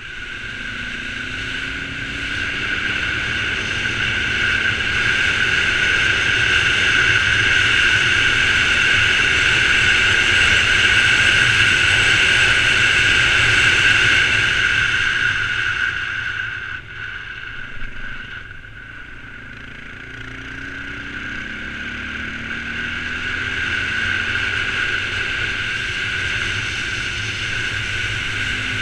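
Motorcycle engine running on the move, mixed with steady wind rush. The sound drops off a little past halfway, then builds again with the engine pitch climbing.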